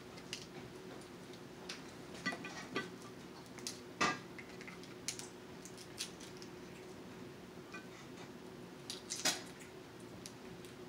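Snow crab leg shells being cracked, snapped and pulled apart by hand: scattered sharp cracks and clicks, the loudest about four seconds in and again about nine seconds in, over a faint steady hum.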